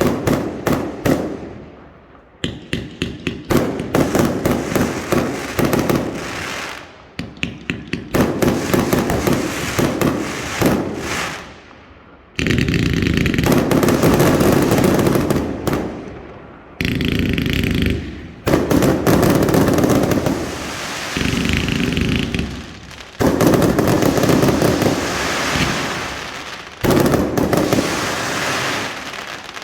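Professional display fireworks fired at close range: quick series of sharp bangs, several a second, then long unbroken stretches of dense crackling and hissing that stop and start again.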